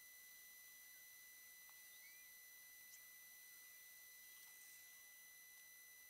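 Near silence: faint hiss with a steady high-pitched electronic whine made of several even tones, and a few faint, brief chirps.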